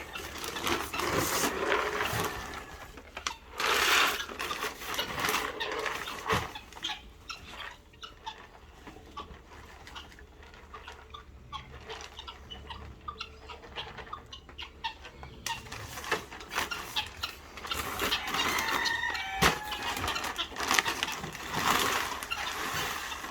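Chickens clucking, with clattering and rustling of feed being scooped and mixed into buckets.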